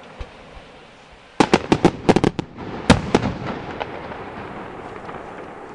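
Aerial fireworks bursting: after a brief lull, a rapid string of sharp bangs begins about a second and a half in, some ten reports within two seconds, then a lingering echoing rumble.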